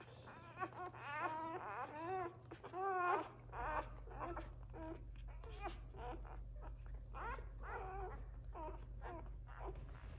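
One-day-old Labradoodle puppies squealing and whimpering as they nurse: many short, high, wavering cries in quick succession. A low steady hum runs underneath.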